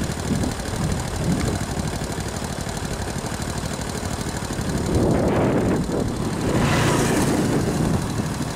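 Motorbike engine idling steadily, with a louder stretch about five to seven seconds in.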